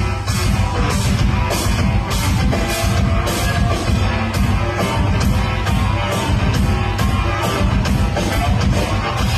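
Live heavy metal music played by a bass clarinet ensemble with a drum kit: low, dense held notes from the bass clarinets under a steady beat of drum and cymbal hits, about two a second.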